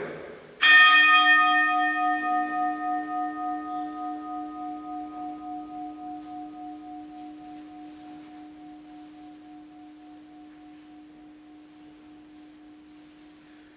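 A consecration bell is struck once, about a second in, then rings on and slowly dies away with a steady wavering beat. It marks the elevation at the consecration of the Mass.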